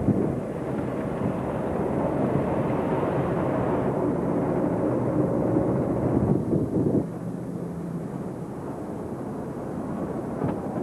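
Car engine and tyre noise heard from inside a moving car, a steady rumble that eases off about seven seconds in.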